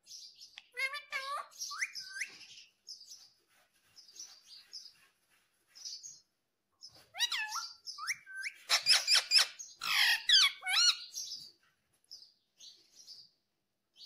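Pet rose-ringed parakeet calling: irregular runs of short chirps and squawks that glide up and down in pitch, with gaps between them, busiest and loudest a little past the middle.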